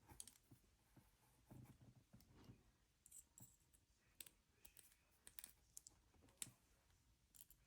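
Faint, irregular metallic clicks of a straightened fishing swivel probing a handcuff's double lock.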